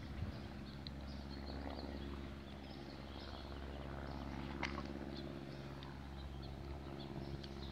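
Outdoor ambience: small birds chirping faintly and intermittently over a steady low hum, with one sharp click about four and a half seconds in.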